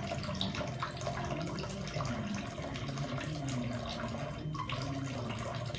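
Kitchen tap running steadily, a thin stream of water splashing into a stainless steel sink.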